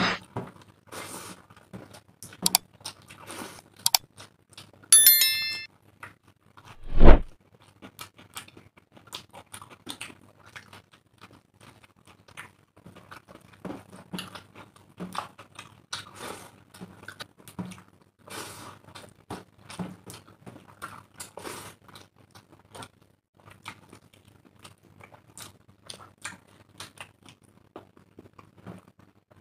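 Close-up eating sounds of people eating rice and egg curry by hand: wet smacking, chewing and squishing, short and irregular. A brief ringing chime sounds about five seconds in, and a loud thump comes about a second later.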